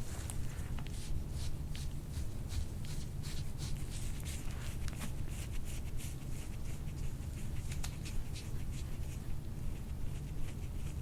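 Hands rubbing and pressing on a patient's back during chiropractic soft-tissue work: a soft, irregular scratchy rustling with many small scrapes. A steady low hum runs underneath.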